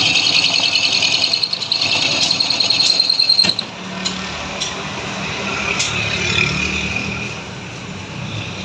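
Metal cutting on a lathe: a loud, high-pitched screech of the tool in the work for about three and a half seconds that stops abruptly, then the machine runs on with a lower hum.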